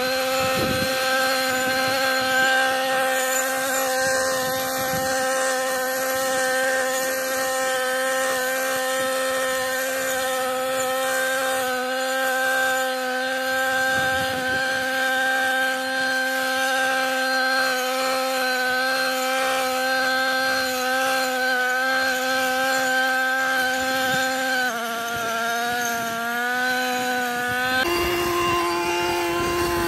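Husqvarna 128R brushcutter's small two-stroke engine running at high speed while mowing, with a steady high pitch. Its pitch sags and wavers for a few seconds late on, then climbs higher near the end.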